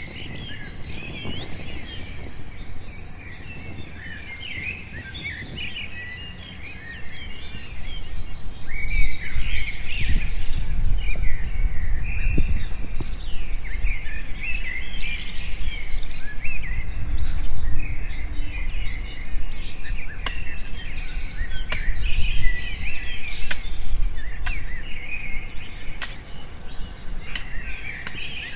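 Several birds chirping and calling at once in many short, quick notes. A low rumble under them grows louder about a third of the way through, and a few sharp clicks come in the later part.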